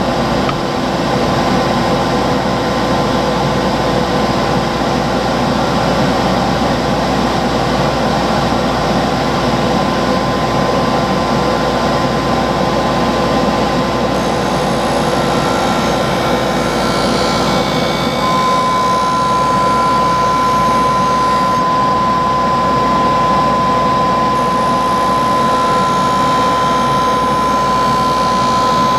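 Skate sharpening machine's grinding wheel running with a steady motor hum. In the second half a steady high-pitched whine and hiss join as a skate blade is ground on the wheel, throwing sparks.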